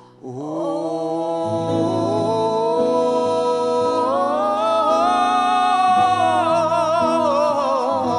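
A gospel ballad duet holding a long sung run without clear words, the voices wavering with vibrato, climbing about four seconds in and sinking back near the end, over backing music whose bass comes in about a second and a half in.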